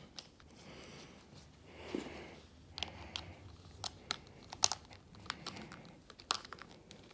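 Screwdriver working on the handle of a Shimano Chronarch Ci4+ baitcasting reel during reassembly: a soft rustle of handling, then from about three seconds in an irregular run of sharp little clicks and taps of metal tool on reel parts.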